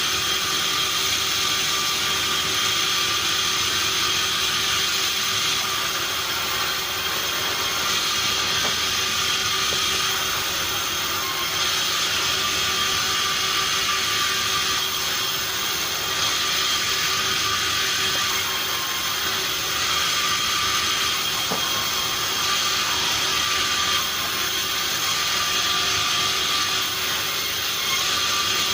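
Sawmill machinery running steadily: a loud, even mechanical whine with several constant tones and no break.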